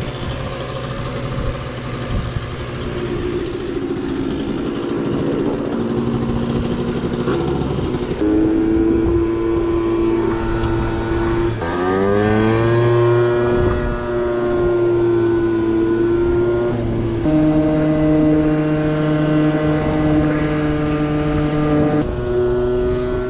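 Tuned 50cc two-stroke scooter engine of a PGO Hot 50 with a 70cc kit and a power filter, running while the scooter is ridden. About twelve seconds in its pitch climbs steeply as it accelerates, then holds steady at cruising speed.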